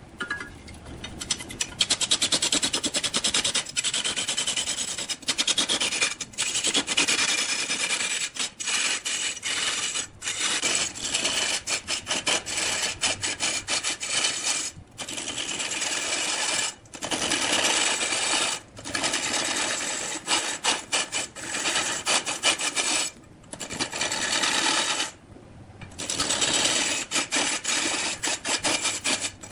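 A long-handled turning tool cuts into a large red-wood log spinning on a big wood lathe, making a loud continuous rasping scrape as chips are torn off. The scrape is broken every few seconds by short pauses.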